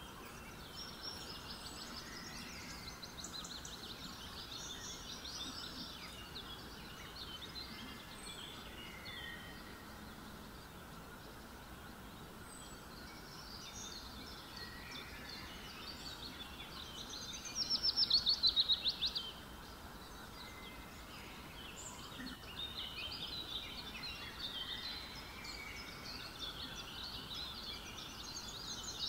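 Birds chirping and trilling on and off over a steady low background hiss, with one loud rapid trill about two-thirds of the way through.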